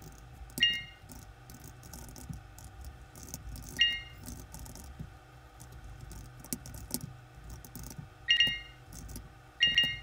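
Computer keyboard typing and mouse clicking in scattered light clicks, broken by four short, bright ringing pings: about a second in, near four seconds, and twice near the end.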